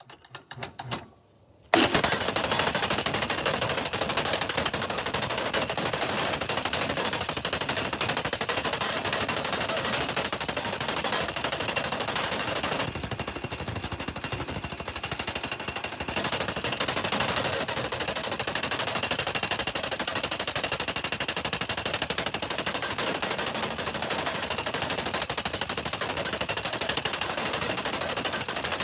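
Harbor Freight jackhammer in a custom pounding frame starts about two seconds in, after a few faint knocks, and then hammers a black ash log in a continuous rapid stream of blows. The pounding loosens the log's growth rings so they can be peeled into basket splint.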